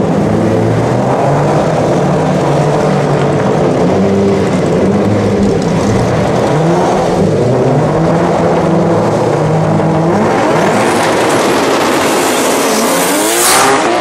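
Two drag cars held at the start line, one of them a VW Golf's turbocharged 2.3-litre Volvo T5 five-cylinder, their engines revving up and down in steps. Near the end they launch, with a fast rising engine note and a rush of noise.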